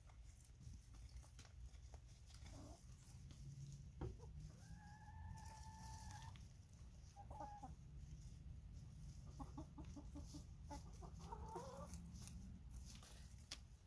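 Hens clucking and calling softly while feeding: one long drawn-out call about five seconds in, then short clucks and a quick run of clucks, and a wavering call near the end, with a few sharp ticks scattered through. A steady low rumble runs underneath.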